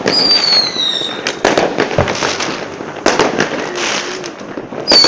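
Firecrackers and fireworks banging in sharp cracks about once a second. A whistling firework gives a falling whistle in the first second, and another starts just before the end.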